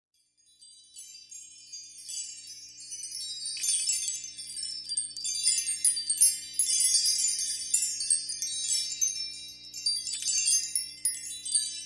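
Dense tinkling of many small metal chimes, fading in and growing louder over the first few seconds, with a faint low drone beneath.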